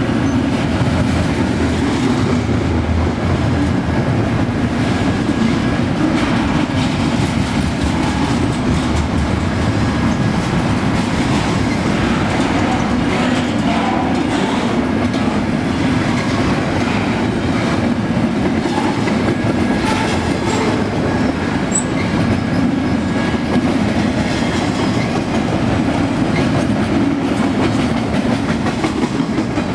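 BNSF double-stack intermodal container train rolling past at close range: a steady, loud rumble of well cars and wheels on the rails, with the clickety-clack of wheels over the track.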